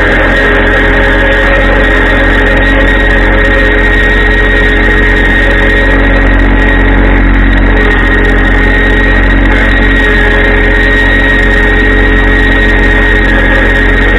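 A farm machine's engine running steadily at constant speed, with a steady high whine over a low rumble.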